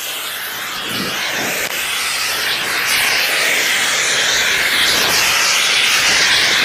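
Oxy-acetylene torch with a rosebud tip burning an acetylene-rich, sooty flame: a steady hiss that grows gradually louder. The carbon-rich flame is laying a thin soot coat on aluminum sheet, the first step of annealing it.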